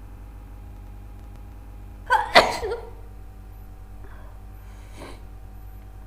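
One loud sneeze from a woman with a head cold. A short voiced intake rises into a single sharp burst about two seconds in, followed by a brief breathy tail.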